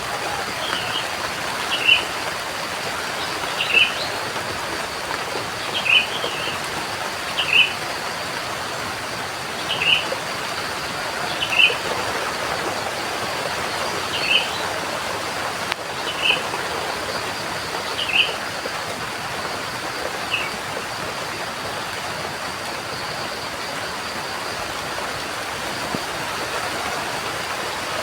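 Steady rain hiss with a bird giving short, repeated chirps about every two seconds; the chirps stop about two-thirds of the way through, leaving only the rain.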